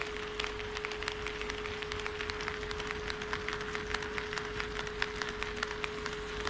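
HO-scale model train running on KATO Unitrack: a rapid, irregular clicking of wheels over the rail joints, over a steady hum and low rumble.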